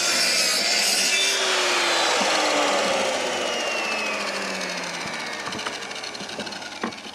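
Electric saw cutting through a wooden board, then the motor switched off and the blade spinning down, its whine falling in pitch and fading over the last few seconds.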